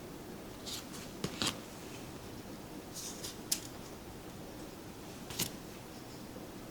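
Tarot cards being handled, with a few short swishes and sharp clicks as the cards are slid and set down, several in the first half and one about five seconds in.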